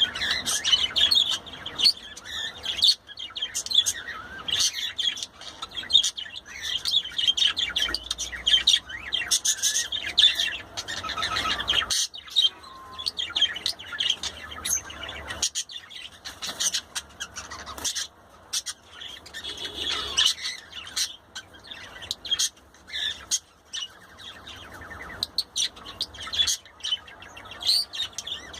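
Budgerigar chattering: a continuous run of quick chirps, clicks and warbling notes, with a couple of short pauses.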